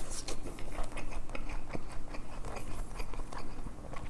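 A person chewing food close to the microphone: wet mouth sounds and many small clicks, with light taps of metal chopsticks against the bowls.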